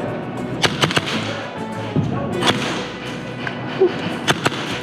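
Scattered, irregularly spaced sharp cracks of airsoft gunfire and BB impacts over a steady background din.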